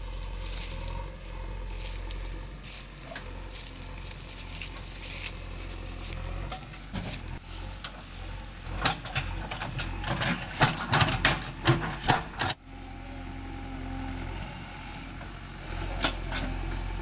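JCB backhoe loader's diesel engine running steadily. From about eight seconds in, a burst of sharp cracks and knocks comes from the bucket working through dry sugarcane trash and soil.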